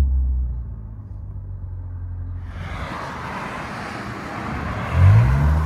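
Lexus IS 250's 2.5-litre V6 through a J2 Engineering cat-back exhaust, heard from inside the cabin while driving. The low exhaust note falls away about half a second in as the throttle is lifted, and road and wind hiss builds. Near the end the engine pulls up in pitch under acceleration.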